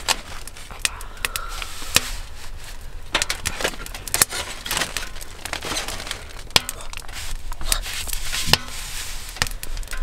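Rustling of sleeping bags and gear, with many sharp knocks and clicks as wooden boards are handled and set down.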